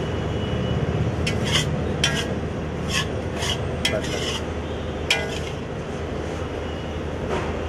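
A steel spatula scraping and knocking against an iron kadai as liver is stir-fried, in about nine short, uneven strokes that are mostly in the first five seconds, over a steady low rumble.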